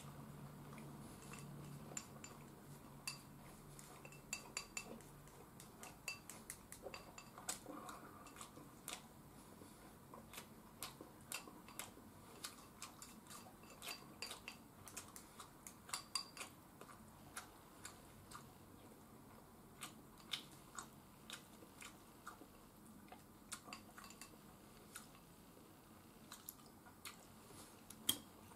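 Chopsticks clicking and scraping against ceramic bowls and a plate during a meal: many small, irregular taps and clinks, with a louder knock near the end as a ceramic bowl is set down on the table.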